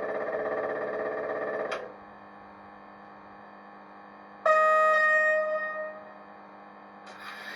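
Sound decoder of a model Class 89 electric locomotive, played through the model's small speaker: a steady electrical tone stops a little under two seconds in, leaving a low hum, then the horn sounds once, loudly, for about a second before fading. A hiss starts near the end.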